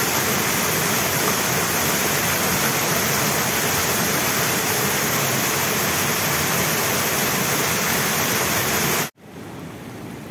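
Muddy floodwater pouring down a rocky hillside channel in a loud, steady rush, swollen by heavy rain. About nine seconds in it cuts off abruptly to a much quieter rush of water.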